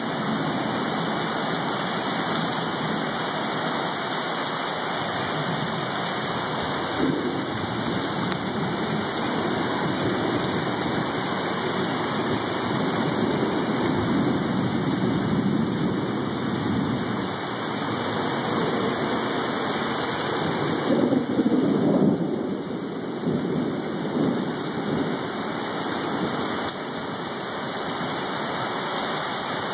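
Heavy rain pouring steadily while thunder rolls and rumbles in long low swells, the loudest rumble coming about two-thirds of the way through.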